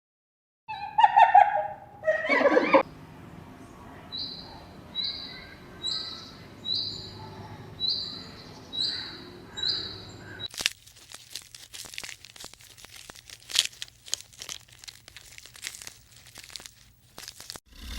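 A bird calling: two loud calls near the start, then a short high chirp repeated about once a second. This is followed by several seconds of crackling and clicking.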